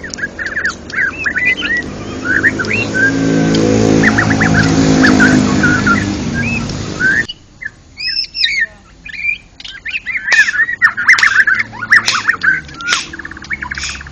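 White-rumped shama (murai batu) singing a rapid run of varied whistles and chirps. Under the first half a motor vehicle's engine hum swells to a peak and then stops abruptly about seven seconds in.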